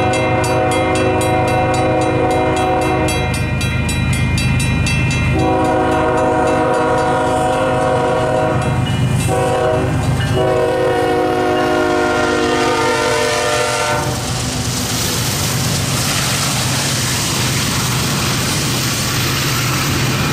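Union Pacific lead locomotive, a GE ES44AC, sounding its horn in the grade-crossing pattern: two long blasts, a short one, and a final long one, over the rapid ringing of the crossing bell. The horn stops about two-thirds of the way through. The diesel locomotives and double-stack intermodal cars then rush past with a steady engine drone and wheel noise.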